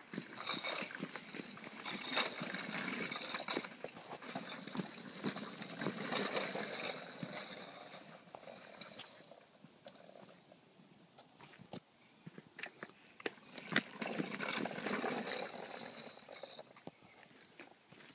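Small child's bicycle with training wheels rolling and rattling over rough asphalt, with scattered clicks and scuffs. It drops quieter for a few seconds in the middle, then picks up again.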